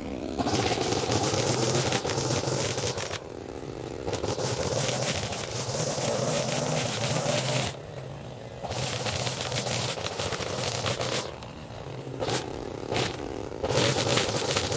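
A small engine running steadily under a loud, rough scraping noise. The scraping cuts out abruptly about four times and comes back while the engine note carries on.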